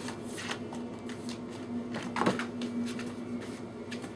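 Dogs moving about on paper: scattered light scratching and rustling over a steady low hum, with one brief louder squeak or whine about two seconds in.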